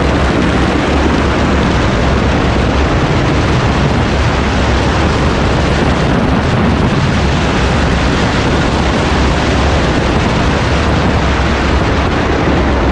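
Rally car driving fast on a desert sand track, heard through a camera mounted outside the car: a loud, steady rush of wind buffeting the microphone over the engine and tyres, with a heavy low rumble.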